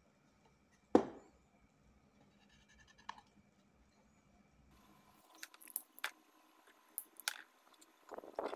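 Hands handling small PVC plastic parts close up: a sharp click about a second in, then scratchy rubbing and small clicks of plastic as a thin plastic strip is pressed along a seam, busiest near the end.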